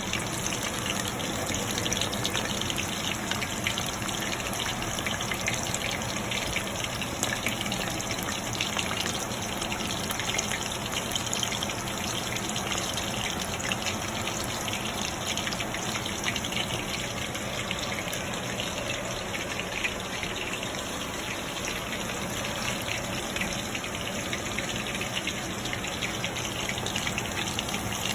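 Flour-coated chicken lollipops deep-frying in hot mustard oil: a steady sizzle with fine crackles throughout.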